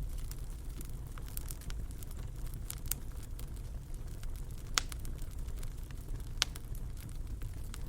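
Wood fire burning in a fireplace: a steady low rumble of the flames with scattered sharp crackles and pops, two louder pops a little past halfway.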